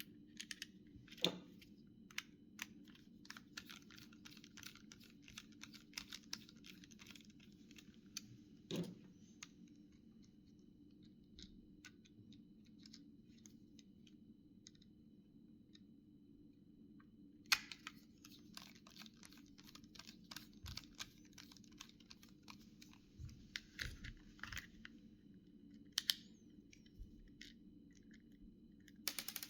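Faint small clicks, scratches and crackles of hands and small tools working on the plastic and metal parts of a Samsung SGH-2100 mobile phone being taken apart. The sounds come in two busy stretches with a quieter spell between, over a steady low hum.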